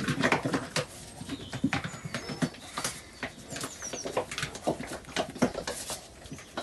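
A capped plastic bottle of low-viscosity two-part epoxy resin shaken hard by hand to mix the clear part into the dark part: liquid sloshing and the bottle knocking in quick, irregular strokes, strongest in the first second. Faint bird chirps in the background.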